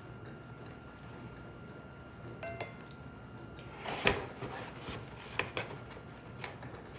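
Dishes and cutlery clinking while someone eats: a few sharp clinks and knocks, the loudest about four seconds in, over a faint steady hum.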